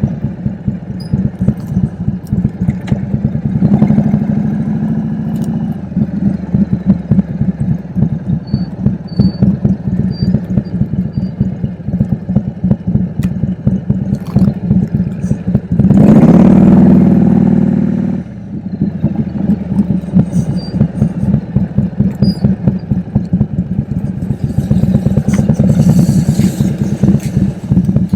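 Harley-Davidson V-twin motorcycle engine running under way, with a rapid, uneven firing beat. Around the middle it revs up louder for about two seconds, then drops back.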